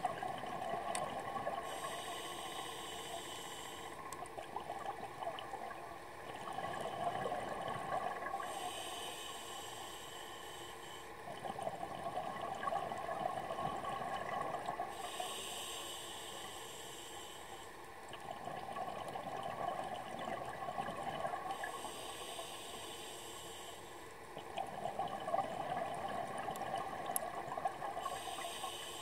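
Scuba diver breathing through a regulator, heard underwater. A hiss of the inhale through the demand valve comes about every six to seven seconds, five times. It alternates with the longer bubbling rush of each exhale.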